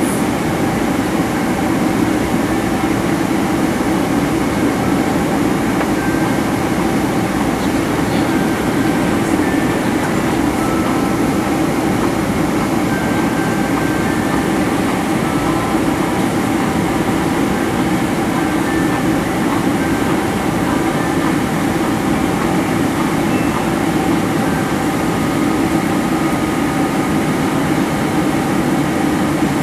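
Steady cabin noise inside a Boeing 767-300ER in flight: the jet engines' and airflow's even roar with a low hum and a few faint steady tones above it.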